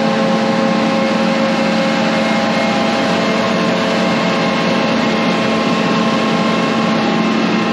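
Engine running steadily at one constant speed, with a continuous hum, as the sprayer tank is filled through a hose from the tender trailer's totes.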